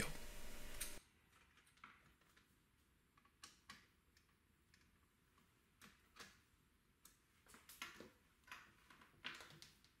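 Near silence broken by faint, scattered clicks and taps, more of them in the second half: small plastic and metal parts of a cassette mechanism being handled and worked with a screwdriver as it is taken apart.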